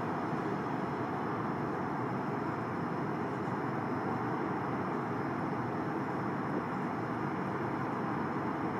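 Steady noise of an Antonov An-124's four Progress D-18T turbofan engines at takeoff power as the aircraft lifts off, heard from a distance, with a faint constant hum in it.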